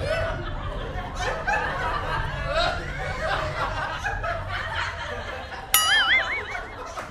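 Audience laughter from a comedy laugh track over background music. About six seconds in, a short warbling, whistle-like comic sound effect.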